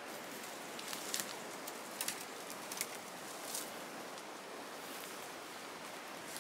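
Faint crackles of twigs and dry leaves underfoot as someone steps barefoot over a fallen log through forest brush, a few short snaps in the first half, over a steady outdoor hiss.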